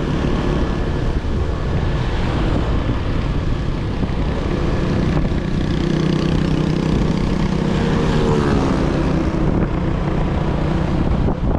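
Yamaha Sniper 155's single-cylinder engine running on its stock exhaust while being ridden, a steady drone whose pitch falls about eight seconds in as the revs drop.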